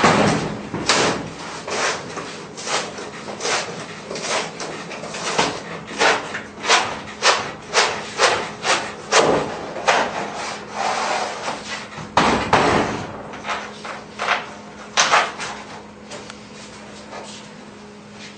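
Garage door insulation insert being pounded and pushed into a garage door panel: a run of knocks against the door, about two a second in the middle, with rubbing and a longer scraping rustle about two thirds of the way through.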